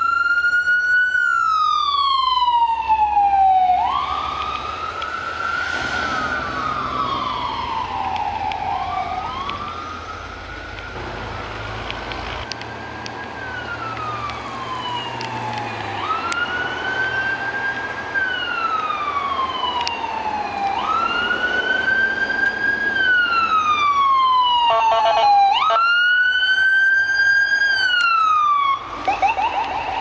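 Electronic siren on emergency vehicles sounding a wail. The tone sweeps up quickly, holds briefly, then slides slowly down, repeating about every four to five seconds. Near the end there is a short, choppier burst.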